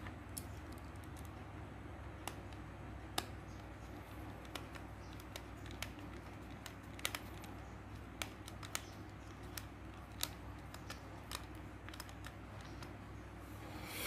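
Small screwdriver driving screws back into an air-conditioner remote's plastic casing: faint, irregular clicks and ticks of the bit and handled plastic.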